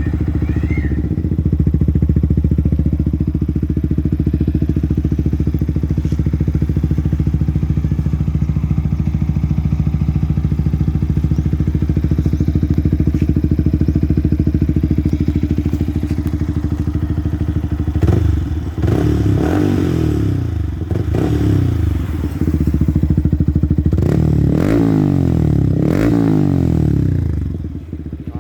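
Yamaha R15 V3's 155 cc single-cylinder engine breathing through an Akrapovic slip-on exhaust, idling steadily, then revved up and down in quick blips twice in the last third.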